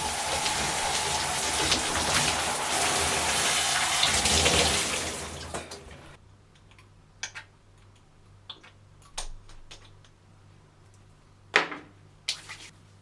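Shower water running in a steady rush, then shut off and fading out about five seconds in, followed by a few scattered small knocks and clicks.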